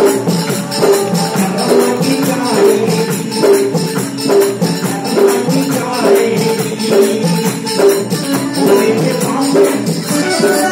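Men singing a song together into microphones, heard over a PA, over a steady beat of jingling hand percussion.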